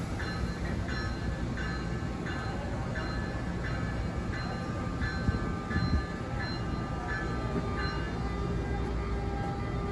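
Railroad grade-crossing bell ringing steadily, about one and a half strikes a second, over the low steady rumble of an NJ Transit electric locomotive and its train.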